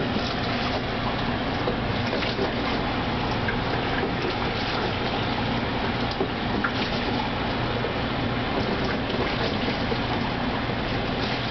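Steady rushing noise with a faint low hum underneath, even and unbroken throughout.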